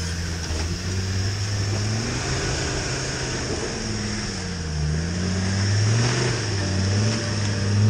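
Land Rover Discovery 2 engine revving under load off-road, its pitch rising and falling, with a dip about halfway through and a climb in revs near the end.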